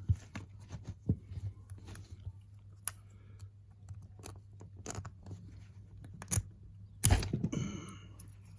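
Small metallic clicks and scrapes of tools working on a picked euro cylinder lock as it is taken apart, with a louder knock about seven seconds in.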